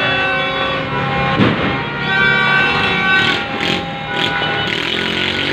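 Noisy street celebration: motorcycle engines running amid music and crowd noise, with a sharp bang about one and a half seconds in and a run of short cracks in the middle.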